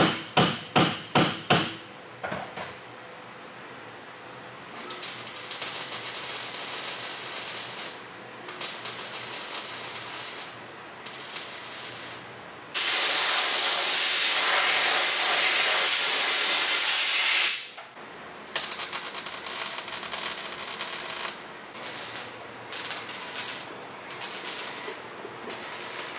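Arc welding on a steel roll cage inside a car: several runs of crackling sizzle that start and stop, with a louder steady hiss lasting about five seconds in the middle. It opens with about seven quick, sharp knocks.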